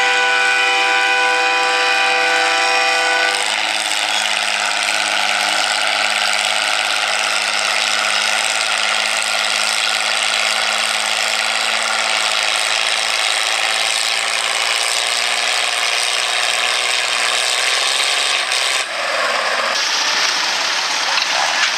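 Farmall 460 tractor engine running hard under load while pulling a weight-transfer sled over the dirt track, with a continuous grinding, scraping noise. A steady pitched drone ends about three seconds in, and the sound changes abruptly near the end.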